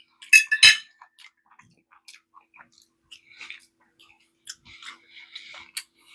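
Two quick metallic clinks of eating utensils against dishware, then faint chewing and mouth sounds.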